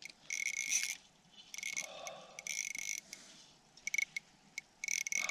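Fishing reel's drag buzzing in short bursts, about five times, as a large hooked splake pulls line off.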